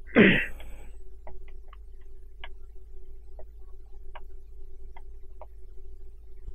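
Scattered single computer mouse clicks, about eight over several seconds, over a steady electrical hum. A short loud burst of sound right at the start.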